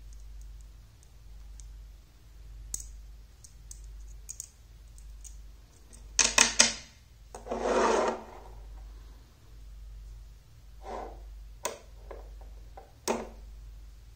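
Magnetic rods and metal balls clicking and clacking together as they snap into place, with a quick run of loud clicks about six seconds in, a short scraping rub just before eight seconds, and a few more clicks near the end.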